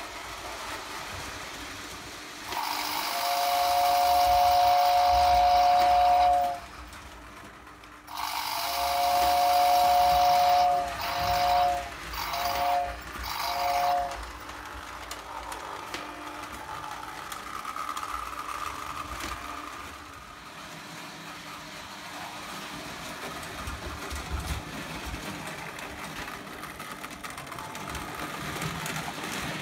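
Lionel O gauge toy train whistle sounding a steady two-note chord: two long blasts starting about three seconds in, then three short ones, over the train's steady running noise on the track.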